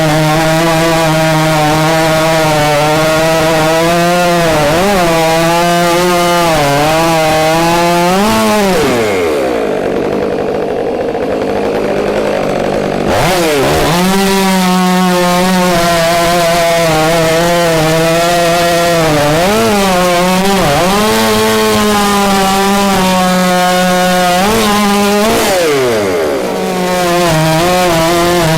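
Stihl 500i fuel-injected two-stroke chainsaw cutting oak log rounds, its engine pitch wavering as the chain bites. About nine seconds in it falls back to idle for a few seconds, then revs up and cuts again, with another short let-off near the end.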